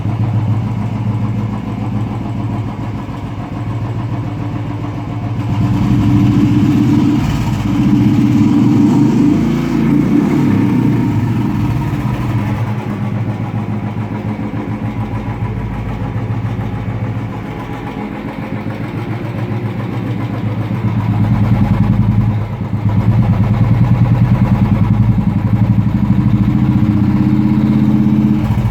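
Royal Enfield motorcycle engine running through an aftermarket Indore exhaust, idling and revved up. It grows louder for a few seconds about a quarter of the way in, and again for a longer stretch near the end.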